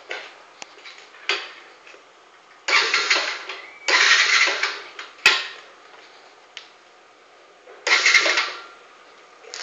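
Repeated attempts to start a 100 cc Zig 100 scooter engine whose exhaust has had its muffler baffle removed: four short bursts of cranking, each about a second long, that do not catch. There is a sharp click a little past the middle.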